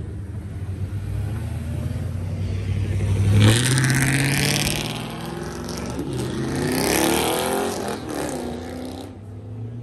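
Car engine running low and steady, then revving hard about three and a half seconds in, easing off, and revving again around seven seconds before cutting back near the end.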